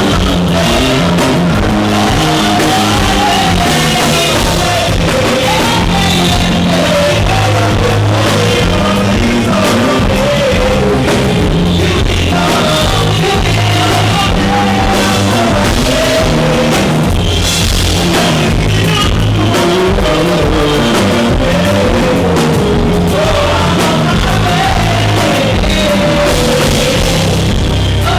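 Live band playing rock-flavoured music with a vocalist singing over it, loud and flattened by an overloaded recording.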